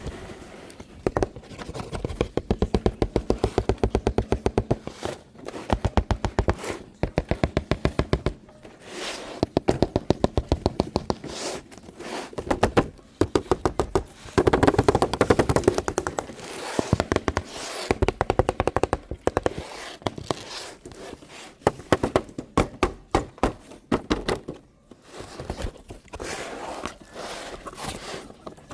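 Rapid, even clicking of a battery-powered toy's plastic mechanism, in runs of one to three seconds with short breaks between them.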